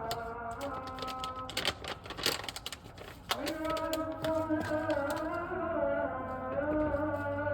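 Background music of held, slowly gliding melodic notes. Between about one and a half and three seconds in it is crossed by a rapid run of sharp crackling clicks.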